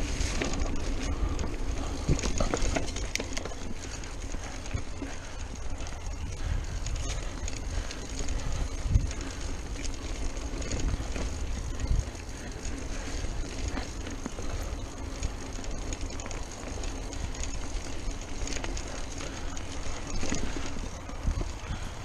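Mountain bike rolling along a dirt singletrack: a steady rumble of tyres on the trail and the bike rattling, with sharp knocks now and then as it hits bumps.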